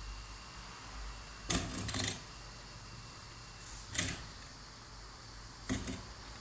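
Pieces of hard dried stockfish knocking against a plate as a hand moves them: a short cluster of clacks about one and a half seconds in, a single knock about four seconds in, and another near the end.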